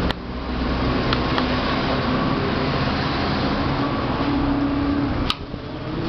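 Steady fan-like whooshing noise, with a sharp click just after the start and another about five seconds in, after which the noise is somewhat quieter.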